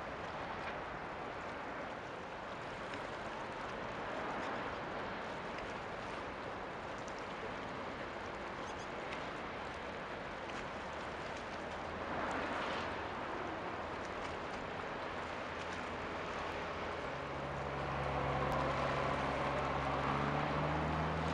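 Steady rush of water washing at the shoreline as a cargo ship passes. From about two-thirds of the way through, a low steady engine hum joins it, with a fainter, higher tone rising above it near the end.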